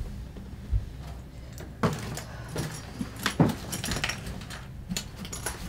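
A suitcase being handled on a bed: a soft thump about a second in, then a run of small clicks and rattles from its zipper pulls and fittings.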